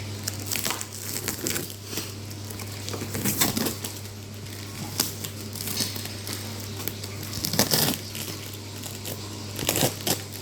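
Parcel packaging being handled and torn open by hand: irregular crinkling, crackling and rustling with a few louder crunches, over a steady low hum.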